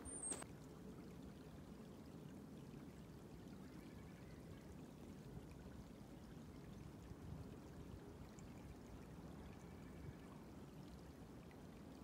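Faint, steady sound of a small creek flowing, with a single crunching footstep in snow right at the start.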